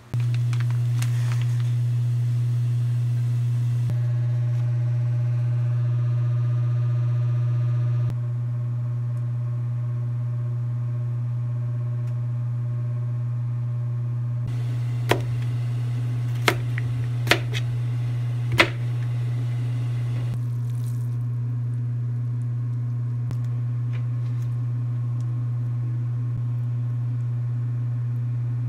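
A steady low electrical hum that starts suddenly and runs on unchanged, with four short sharp clicks about halfway through.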